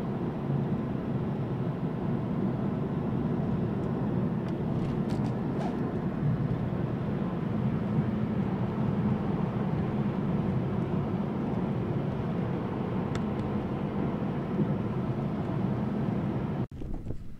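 Steady road and engine noise of a moving car, heard from inside the cabin: an even low rumble that cuts off abruptly near the end.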